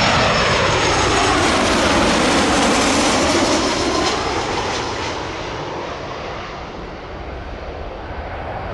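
Jet airliner passing low overhead, its engine noise sweeping down and back up in pitch and fading over the second half.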